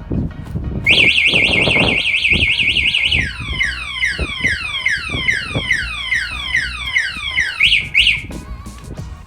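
Motorcycle anti-theft alarm siren, loud, stepping through its tone patterns. Just under a second in it starts a fast high warble, which changes about three seconds in to repeated falling sweeps at about three a second, and it ends with two short rising chirps.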